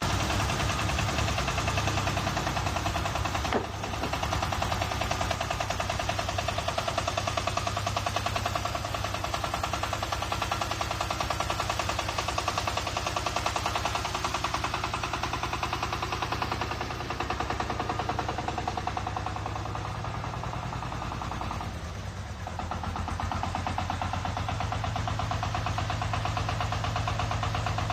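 Mini crawler tractor's engine running steadily with a fast, even chugging beat. There is one sharp knock about three and a half seconds in and a brief dip in level past the middle.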